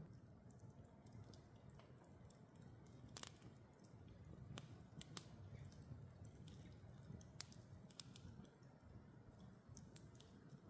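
Near silence with faint scattered clicks and small handling noises, one sharper tick about three seconds in and another about seven seconds in.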